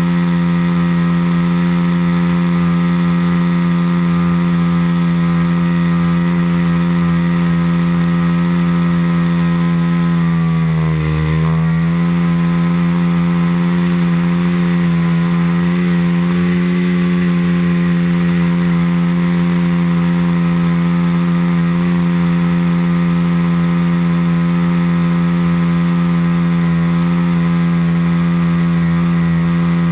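Sig Four Star 60 RC airplane's .90 four-stroke nitro engine running steadily in flight, heard from on board the plane. Its pitch dips briefly about eleven seconds in, then comes back up.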